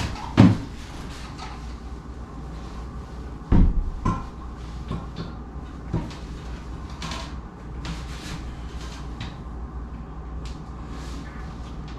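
A one-piece toilet being lifted and set down over its floor bolts and wax ring: a few scattered knocks and thumps, the heaviest about three and a half seconds in.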